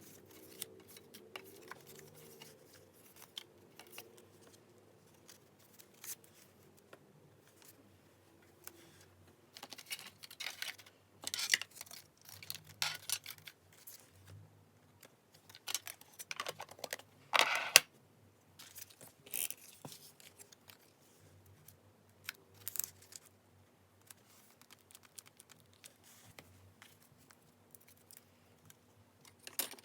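Paper being handled for journal decorating: scattered short rustles and crinkles, with the busiest and loudest handling in the middle.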